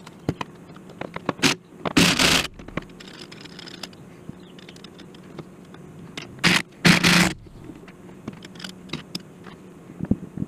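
Hand tools scraping and knocking against metal machine parts: two short, harsh scrapes, about two seconds in and again about seven seconds in, with light clicks between them, over a steady low hum.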